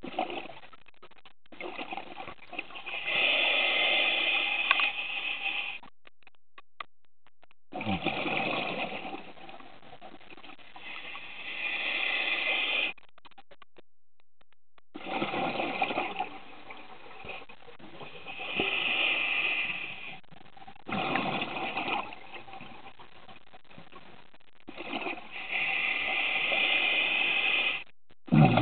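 Scuba diver breathing through a regulator underwater: repeated bursts of rushing air and bubbles, each lasting a few seconds, with short quieter pauses between breaths.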